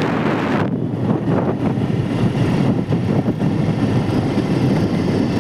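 A moving vehicle's steady road and engine rumble, with wind blowing across the microphone.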